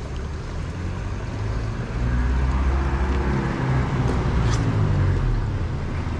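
A motor vehicle's engine passing close by, growing louder about two seconds in, then dropping in pitch as it goes past. Under it is a steady rumble of wind and riding noise on a bicycle-mounted action camera.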